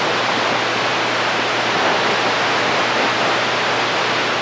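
CB radio receiver putting out steady static hiss between transmissions.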